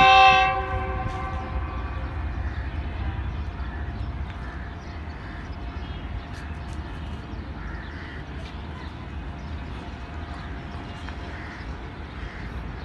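A GEU-40 diesel-electric locomotive's multi-tone horn ends a long blast just after the start and briefly rings on. It is followed by the locomotive's steady low rumble as it slowly draws its train forward.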